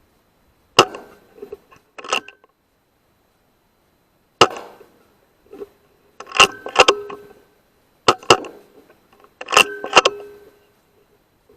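Sharp metallic clanks and clicks in about seven separate bursts, some of them in quick pairs, each ringing briefly like struck metal.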